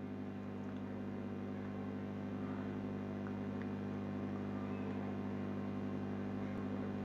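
Steady low electrical hum, a few low pitched tones held unchanged throughout.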